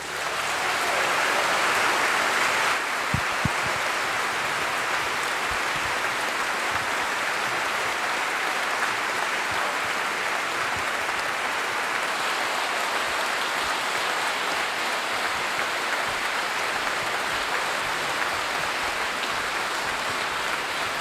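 A large concert audience applauding as a song ends. The applause is loudest for the first three seconds or so, then holds steady, with a couple of low thumps about three seconds in.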